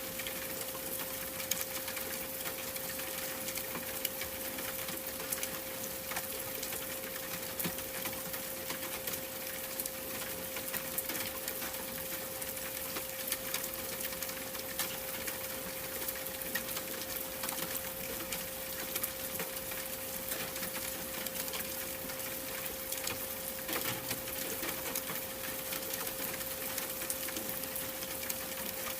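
A steady pure 528 Hz tone holds unchanged under a constant hiss dotted with many small, quick crackles and ticks.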